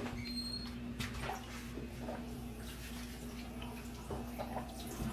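Quiet room tone: a steady low hum with a faint hiss and a few soft clicks, one at the start and one about a second in.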